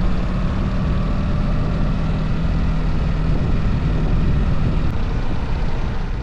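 A steady motor hum under a heavy rushing roar, cutting off abruptly at the end.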